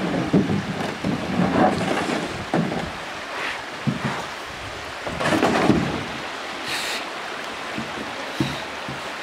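Shallow creek water rushing steadily over rocks, with irregular bumps, scrapes and splashes as a canoe is dragged through the rocky shallows by someone wading beside it.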